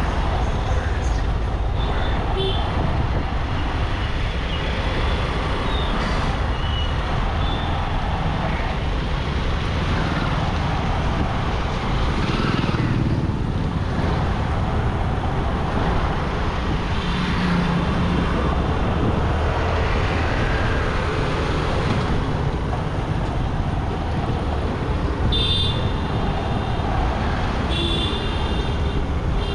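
A motorcycle being ridden through town traffic: steady engine and wind noise, with vehicle horns honking twice near the end.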